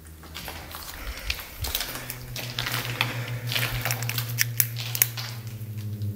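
Irregular sharp clicks and crackles throughout. About two seconds in, a low steady hum comes in and grows louder, pulsing slightly.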